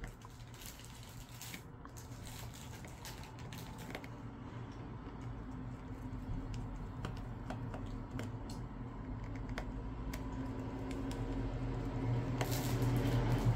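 Small scattered clicks and taps of tools and plastic phone parts being handled during disassembly of a smartphone, over a steady low hum that grows louder toward the end.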